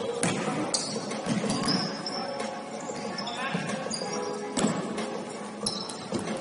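Basketball game sounds: sneakers squeaking on the court, a few ball bounces, and players' voices and shouts.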